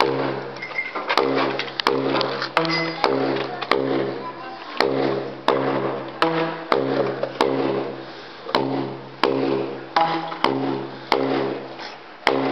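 Long plastic percussion tubes struck end-first on the floor. Each stroke gives a sharp click and then a hollow, pitched tone that rings for about half a second. The strokes come in a steady rhythm of roughly one and a half a second, and the pitch steps between a lower and a higher note.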